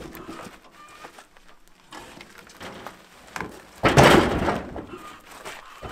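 Logs being handled on a wooden-decked utility trailer: a few light knocks, then about four seconds in a loud, heavy thud as a log comes down on the trailer, rumbling on for about a second.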